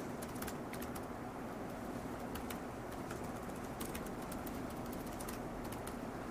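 Computer keyboard typing: irregular, scattered key clicks over a steady low room hum.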